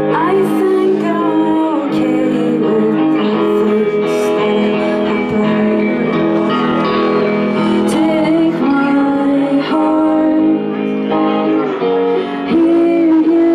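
Live rock song: a woman sings, holding long notes, while playing chords on an electric guitar through an amplifier.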